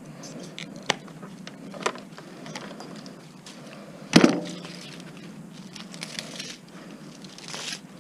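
Metal knocks and clanks from a dishwasher being taken apart for scrap: two sharp knocks early, then one loud clank that rings briefly about four seconds in, with scraping and handling noise near the end.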